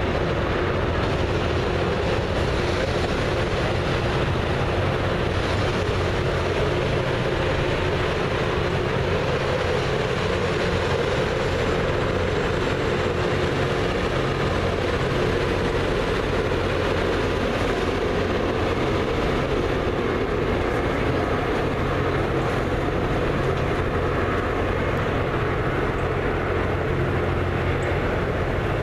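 Loram rail grinder train passing over a steel truss railway bridge: a loud, steady drone of its engines and rolling wheels.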